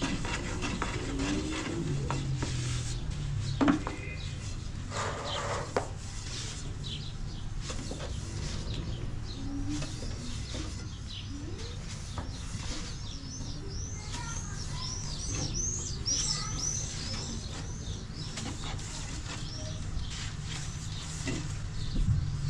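Small birds chirping in quick, high, rising calls, mostly in the second half, over a steady low rumble. Near the start, a few sharp knocks and taps of a wooden rolling pin against a wooden dough board.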